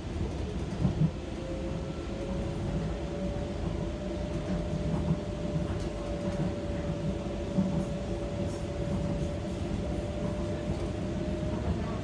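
Docklands Light Railway train running along its track, heard from inside the front car: a steady low rumble with an electric motor whine that rises slightly in pitch over the first few seconds and then holds. A few sharp knocks break through now and then.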